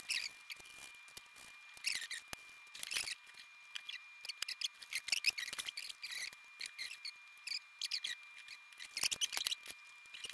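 Small screws being turned out of a Line 6 POD HD500x's metal chassis with an Allen wrench: a run of short scratchy clicks and squeaks, metal on metal.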